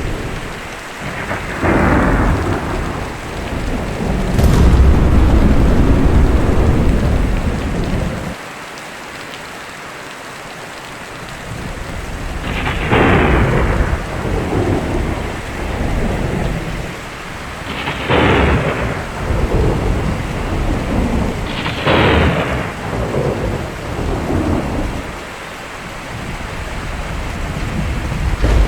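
Thunderstorm: steady rain with repeated thunder. There is a long, heavy low rumble in the first third, then several sudden sharp cracks in the second half, each rolling off into rumble.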